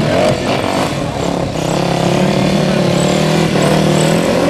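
Sport quad (ATV) engine running at steady revs during a wheelie, with voices over it.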